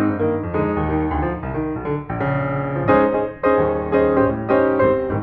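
Background music: a piano playing a lively run of notes over chords.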